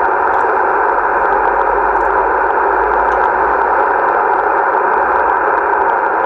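Steady band-limited hiss of HF static from a Yaesu FTDX-1200 transceiver's speaker. It is receiving single-sideband on the 20-metre band, 14.270 MHz, between transmissions.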